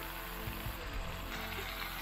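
Background music with a steady hiss beneath it.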